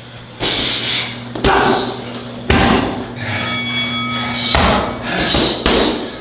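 About five hard strikes landing on boxing training gear at roughly one a second, with a thin ringing tone between the third and fourth strike.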